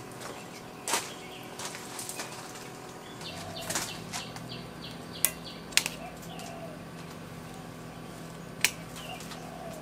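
Scattered sharp clicks and light knocks of kitchen handling. A quick run of high ticks sounds about a third of the way in, over a faint low hum that starts at about the same point.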